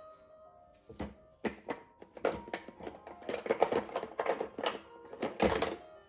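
Irregular knocking and tapping: a few single knocks, then a fast uneven clatter, and a heavier thump near the end, with faint music underneath.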